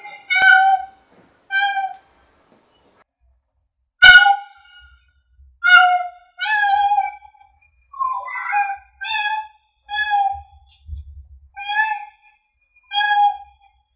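A house cat meowing over and over: about a dozen short, high meows with a pause of about two seconds after the first two, the loudest about four seconds in.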